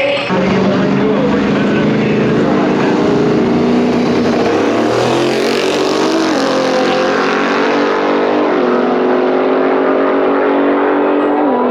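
Car engine at full throttle, accelerating hard. Its pitch holds high and then drops in steps at the gear changes: about six seconds in, a little before nine seconds, and near the end.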